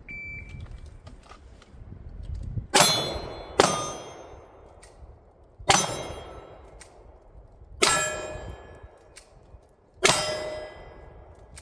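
Short shot-timer beep, then five pistol shots at uneven spacing, each with the ring of a struck steel target dying away after it.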